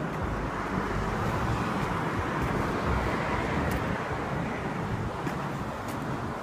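Steady road traffic noise, with wind buffeting the microphone.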